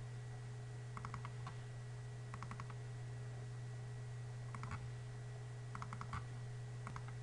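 Computer keyboard and mouse clicks in a few short clusters of quick taps, over a steady low electrical hum.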